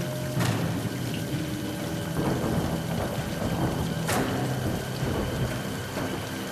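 Heavy rain pouring steadily, with two sharp cracks of thunder, one about half a second in and another about four seconds in.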